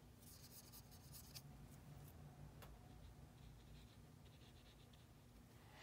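Near silence, with the faint scratching of a watercolour brush working paint on paper in a couple of short patches and one soft tap about halfway through.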